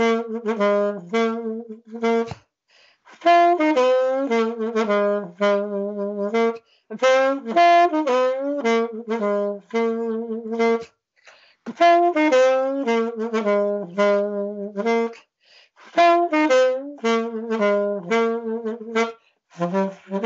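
Unaccompanied saxophone playing a very simple melody, one note at a time, in phrases of a few seconds with short breaks for breath, heard through a video-call connection.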